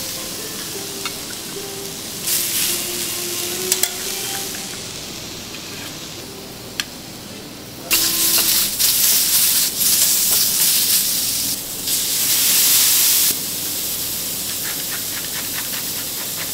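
Lobster pieces sizzling on a hot steel teppanyaki griddle as they are tossed with a metal spatula and fork, with clicks of metal on metal. The sizzle swells a few seconds in and is loudest from about 8 s to 13 s, then settles back to a steady hiss.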